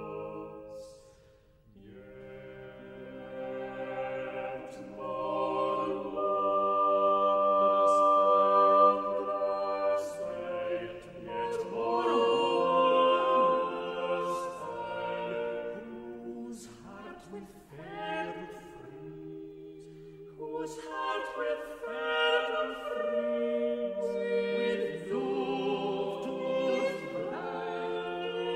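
An unaccompanied vocal ensemble sings a Renaissance English madrigal in several interweaving parts. The voices break off briefly about a second in, then re-enter one after another, holding sustained chords with shifting lines.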